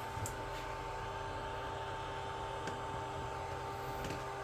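Glowforge laser cutter's fans running with a steady whir and a constant faint whine, with a few faint small clicks.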